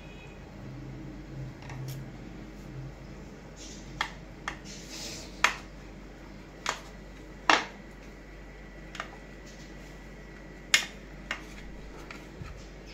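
A table knife cutting a rolled flatbread on a divided plate, the blade knocking against the plate in a series of sharp, irregularly spaced clicks, about nine in all.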